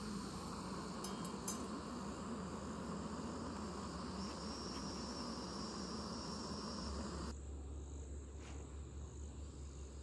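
Steady hiss of a lit camp stove burner, with insects chirping. About seven seconds in the sound changes abruptly: the higher hiss drops away and a low hum takes over.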